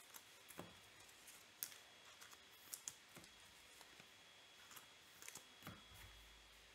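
Near silence with faint, scattered clicks and light taps, about a dozen at irregular intervals, from trading cards and packs being handled on a table.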